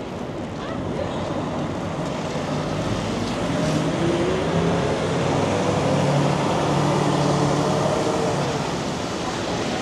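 A tractor-trailer's diesel engine pulls through the intersection. Its pitch rises as it accelerates, holds steady, then fades, over the hiss of traffic on a wet street.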